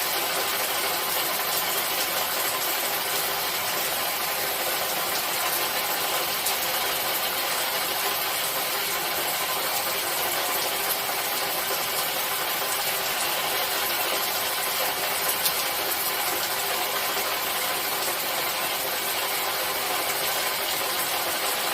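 Steady rainfall: a dense, even hiss of rain with a few sharper drop ticks now and then.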